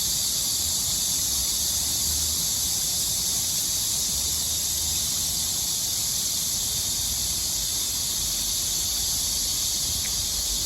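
Water in a city stream flowing steadily: a constant high hiss with a low rumble underneath.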